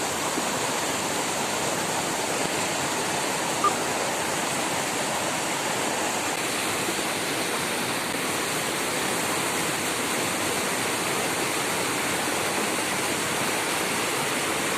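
Waterfall pouring steadily, a constant even rush of falling water, with one brief click a little under four seconds in.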